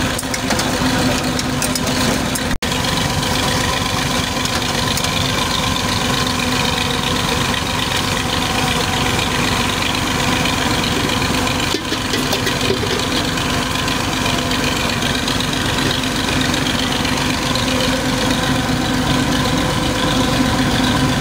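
Mustard-seed oil expeller (screw press) running steadily under load while pressing seed: a continuous mechanical drone with a steady low hum, briefly cut out twice.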